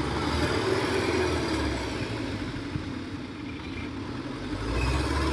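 Engine of a small tracked rice-sack carrier running as it labours in deep mud, unable to move forward. The engine sound fades a little in the middle and grows louder again near the end.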